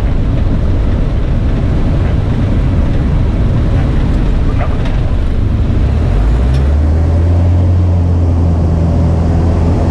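Cockpit noise of a high-wing light aircraft in a spin: steady rushing wind over a low engine rumble. About six seconds in, a steady low engine drone comes up and holds.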